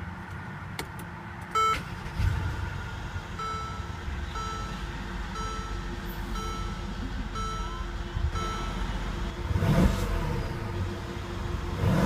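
Dashboard warning chime in a 2014 Mercedes-Benz SL550's cabin: one louder ding about a second and a half in, then softer dings about once a second. Near the end the car's turbocharged 4.7-litre V8 fires up with a short loud burst.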